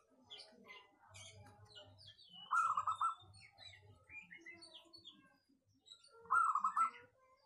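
Zebra dove (perkutut) cooing: a loud, rapid stuttering phrase of four or five notes, given twice, about 2.5 and 6.3 seconds in. Other small birds chirp in the background between the phrases.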